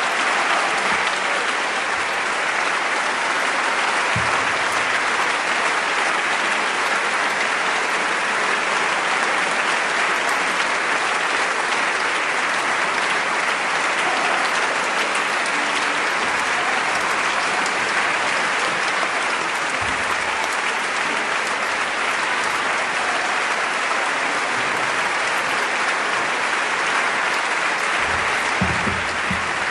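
Audience applauding steadily, without a break.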